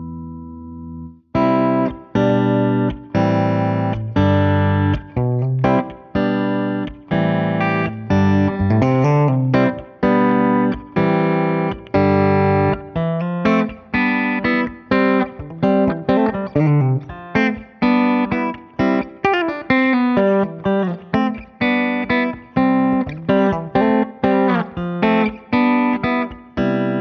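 Yamaha Pacifica Professional electric guitar played clean through its bridge humbucker. A held chord stops about a second in, then a phrase of picked chords and single notes, with attacks every half second or faster, ends on a chord left ringing.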